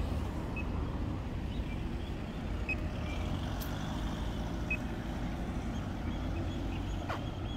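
Steady low outdoor background rumble, with a few short high chirps scattered through it and a quick run of chirps near the end.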